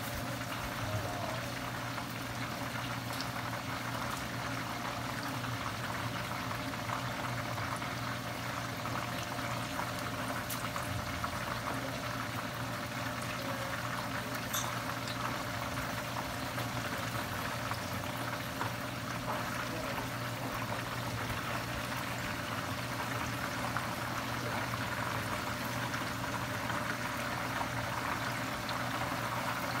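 Battered chicken drumsticks deep-frying in hot oil in a pan: a steady sizzling and bubbling. A few light clicks come through as tongs turn the pieces.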